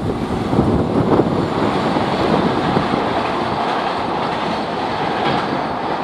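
Train running along the track: a steady rumble and rattle of wheels on rails.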